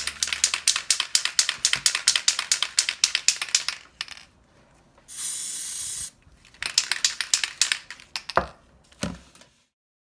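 Aerosol spray paint can being shaken hard, its mixing ball rattling rapidly for about four seconds, then a hiss of spray lasting about a second, more rattling shakes, and two knocks before the sound cuts off.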